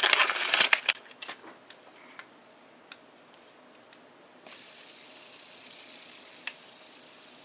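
Plastic packaging crinkling and rustling for about the first second, then a few light clicks, then from about halfway a steady faint hiss.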